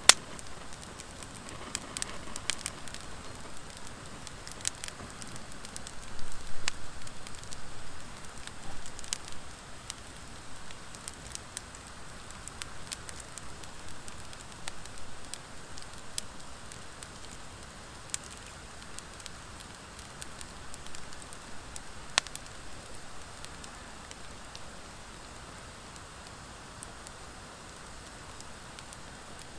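Wood fire of driftwood and dry hardwood logs burning: a steady hiss with scattered sharp crackles and pops, busier in the first ten seconds, and one sharp pop a little past twenty seconds in.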